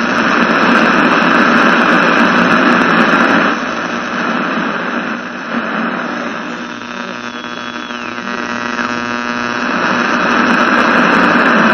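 A loud, steady electronic drone with a hiss, laid over the opening titles as sound design. It drops back about three and a half seconds in and swells again near the end. Around the middle a tone slides downward.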